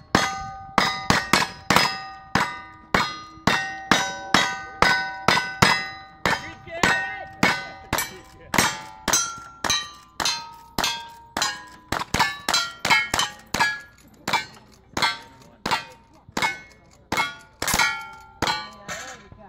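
Rapid gunfire from two shooters firing single-action revolvers and then lever-action rifles at steel plate targets, about two shots a second. Each shot is followed by the ringing clang of the steel plate it hits.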